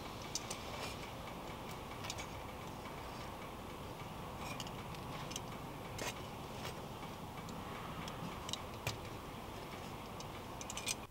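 Metal kitchen tongs clicking and tapping as they grip and handle crusty baked bread rolls on a wooden board: scattered sharp clicks at irregular intervals over a steady low background noise.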